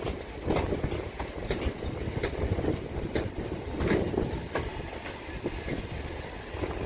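Southern Class 377 Electrostar electric train moving along the track, its wheels knocking over rail joints in an uneven clickety-clack over a low rumble. A faint, brief high wheel squeal comes in near the end.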